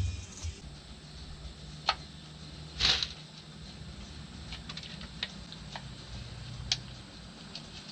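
Masking tape being pulled off the roll and applied by hand: a short tearing rasp about three seconds in and a few small clicks and crackles spread through, after a low thump right at the start.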